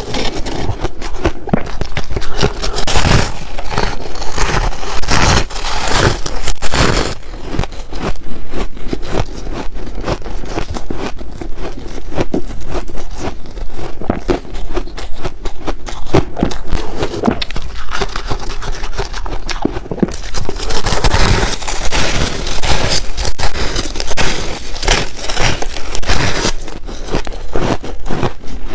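Close-miked chewing of hard blue ice cubes: a dense run of crunching and crackling as the ice breaks between the teeth, busiest a couple of seconds in and again near the end.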